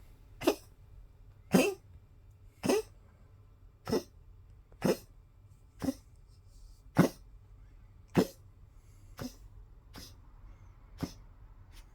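Poodle coughing, about a dozen short, sharp coughs spaced roughly a second apart and growing weaker near the end. It is the persistent cough of a collapsing trachea.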